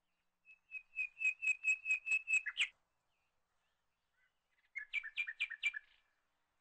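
A bird singing two phrases of rapid, evenly repeated high notes, about six a second. The first phrase ends in a quick flourish; the second comes about two seconds later.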